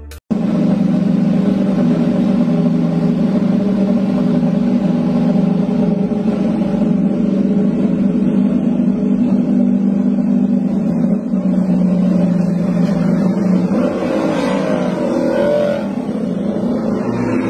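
Ducati superbike engine running at a steady speed, then revving up and down near the end.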